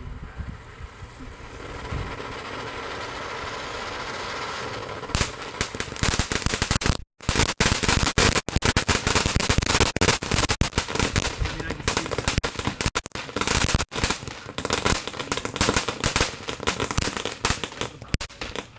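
Ground-level consumer fireworks going off: a steady hiss for a few seconds, then from about five seconds in a long, dense run of rapid crackling pops.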